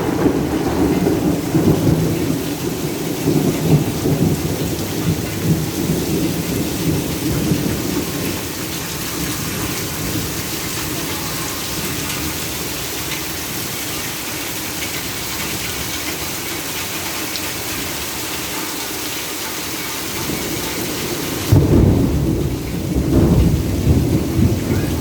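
Steady rain falling, with thunder rumbling low through the first several seconds and a fresh roll of thunder starting suddenly near the end.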